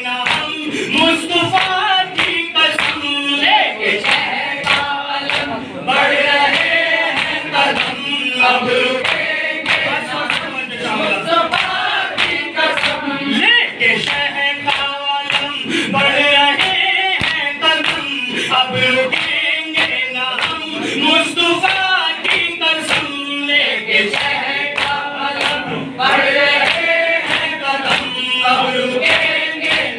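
Men's voices chanting a noha, a Shia lament, in unison through a microphone, over a steady beat of matam: open hands striking chests in time with the recitation.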